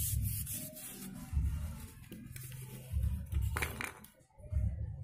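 Music with a slow, steady low beat, about one pulse every second and a half, and a brief sharp handling noise about three and a half seconds in.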